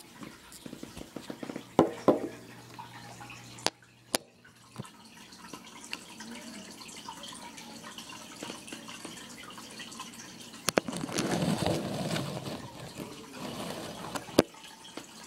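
Water trickling and splashing in a fish tank, louder for a couple of seconds past the middle, with a few sharp knocks.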